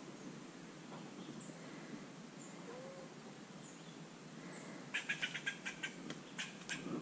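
A wild animal's rapid chattering call, a run of sharp notes, fast at first then spacing out, lasting about two seconds near the end. Faint, short high chirps recur about once a second.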